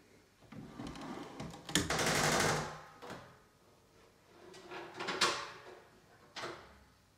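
A wooden interior door being opened by its lever handle: the latch clicks sharply a little under two seconds in with a short swish after it, then more handling noise and two further clicks later on.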